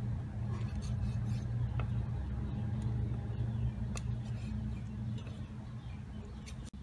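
Kitchen knife slicing cooked pig intestine on a wooden chopping board, with a couple of sharp knocks of the blade against the board, over a steady low hum.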